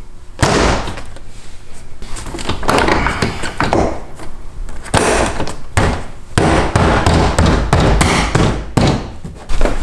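BMW E46 M3 interior door card being banged by hand against the door to snap its plastic retaining clips into place: a run of irregular thumps and knocks, the first heavy one about half a second in and a quicker series in the second half.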